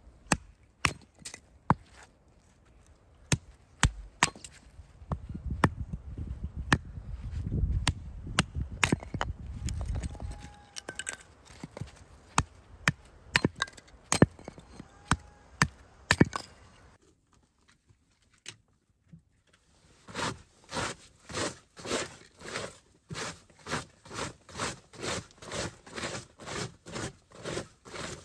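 Hatchet chopping a split stick into kindling: sharp, irregular knocks of the blade into wood. After a short pause, a knife shaves curls from a stick, an even run of scraping strokes about two a second.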